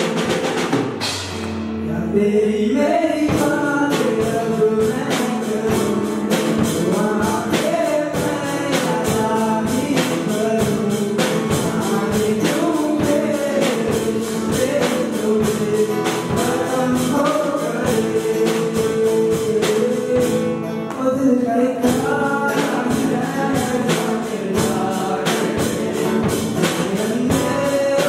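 Live band music: a male singer with acoustic guitar, dholak and drum kit playing a song with a steady beat. The beat drops out briefly about a second in, then comes back.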